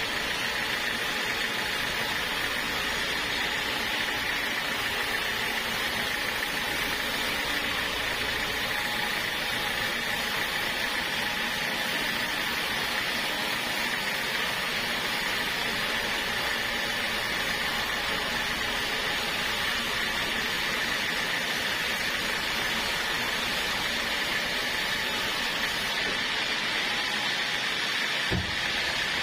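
Portable sawmill running steadily: a constant machine drone with a steady high whine that does not change. A brief low thump comes near the end.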